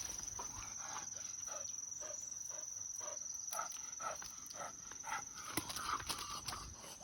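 English setter breathing hard in short, quick pants while pulling on its leash, with footsteps on the walk and a steady high-pitched whine in the background.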